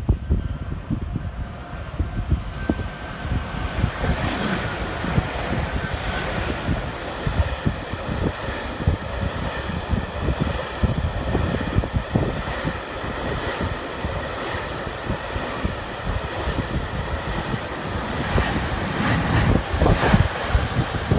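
JR freight train passing through at speed: a long, steady rumble of wagons with rapid wheel clatter, louder again near the end.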